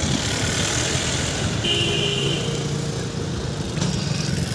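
Steady engine and road noise of a moving bus, heard from inside. A brief vehicle horn toot sounds about two seconds in.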